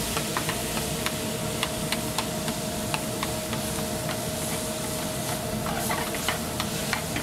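Ground chicken frying in a skillet over a gas burner, a steady sizzle, while a metal spoon stirs it with irregular scrapes and clicks against the pan. A steady hum runs underneath.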